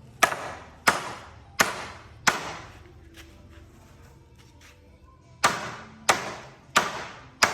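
Eight hard blows struck on wood in two runs of four, each with a short ringing decay, typical of a mallet driving a wooden mortise-and-tenon joint together.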